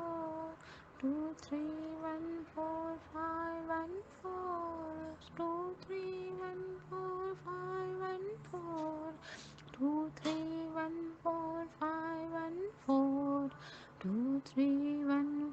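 A woman's voice chanting a repeated number sequence in a sing-song tune, short syllables on a few held notes, with a faint low hum underneath.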